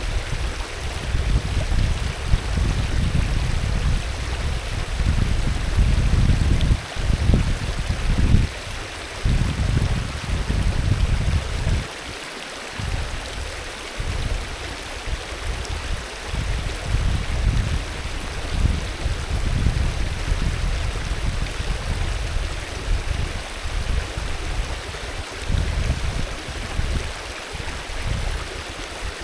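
Alpine river flowing in a steady rushing hiss, with an uneven low rumble underneath that swells and fades, dropping away briefly about twelve seconds in.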